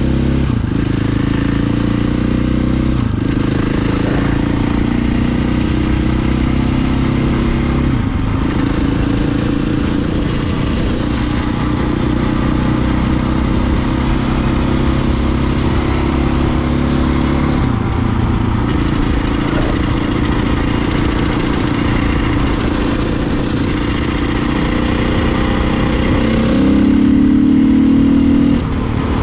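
A motor vehicle engine running steadily. Its pitch changes in steps a few times and climbs near the end, where it briefly gets louder.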